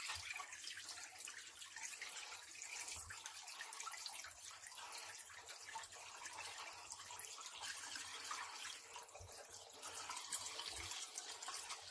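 Rinse water draining out of a KUPPET mini portable washing machine's drain hose, a steady splashing trickle with a few faint low thumps.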